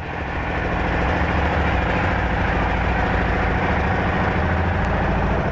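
Heavy engine idling close up: a steady low rumble that grows louder over the first second, then holds.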